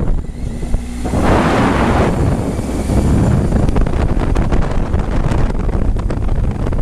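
Riding sound of a Triumph Tiger 800XC's three-cylinder engine on a dirt road, heard from a helmet-mounted camera, with heavy wind rush on the microphone that grows louder about a second in.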